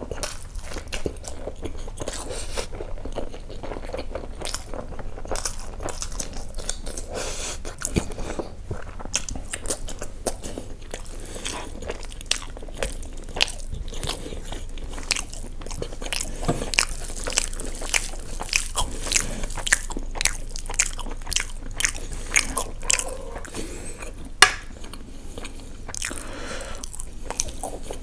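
A person chewing mouthfuls of basmati rice with mutton keema kaleji gravy, eaten by hand, with many short sharp mouth clicks and one louder click about 24 seconds in.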